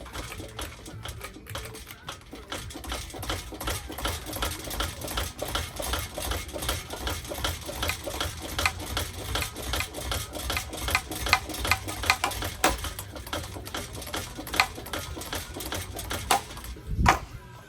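A damaged hugger ceiling fan running, with parts clattering in a rapid, even run of clicks over a low rumble. A louder thump comes near the end.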